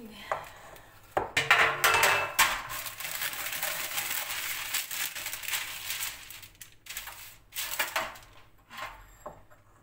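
Sheet of baking paper crinkling and rustling as it is handled and spread out, several seconds of dense crackle. A few light knocks follow near the end as it is laid and pressed flat onto a baking tray.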